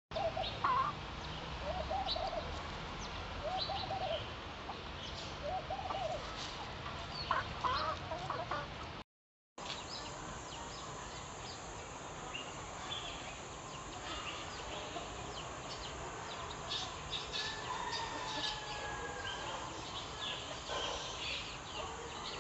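Hens clucking in short calls, with small birds chirping over a steady outdoor background. The sound cuts out completely for about half a second around nine seconds in.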